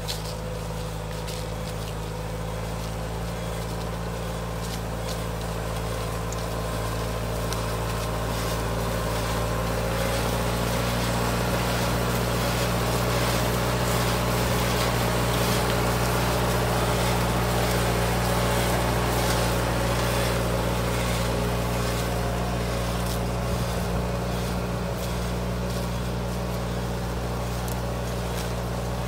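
Diesel engine of a John Deere tractor running steadily under load while pulling a Clemens Bison ripper through vineyard soil. Light scattered clicks and rattles sit over the drone, which grows a little louder towards the middle.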